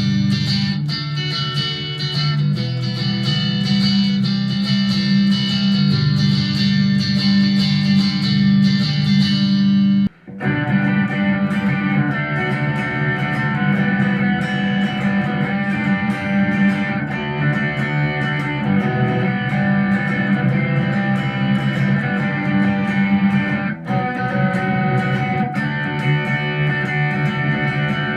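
Squier electric guitar played through an M-Vave MK-300 multi-effects preset, with no backing. About ten seconds in the sound cuts out for a moment and returns with a different tone: a switch to the next preset.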